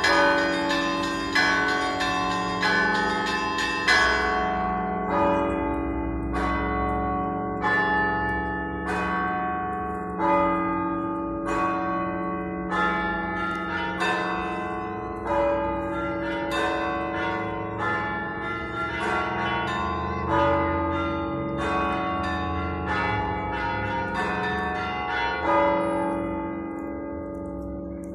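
Russian Orthodox cathedral bells ringing. A deep bell is struck about every five seconds, and several smaller bells are struck in a pattern in between, quickly at first and then about once a second, each stroke ringing on into the next.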